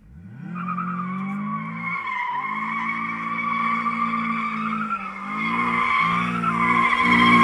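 FSO Polonez with a 1.4-litre 16-valve engine revving up and held at high revs while its tyres squeal in a long drift. The engine note dips and picks up again a few times, and the squeal grows louder near the end.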